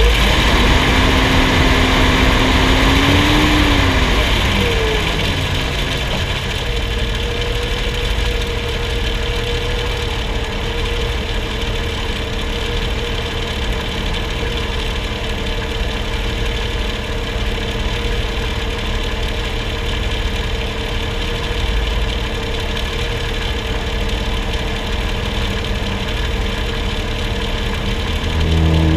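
Truck engine idling steadily, heard from underneath at the front axle. A whine rises and falls over the first few seconds, and a steadier, higher whine holds from about seven seconds in.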